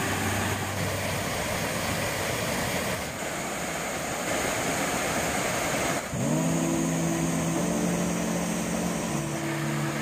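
Steady rush of a mountain stream pouring down a small waterfall over rock. About six seconds in, low sustained background-music notes come in under the water, changing pitch twice.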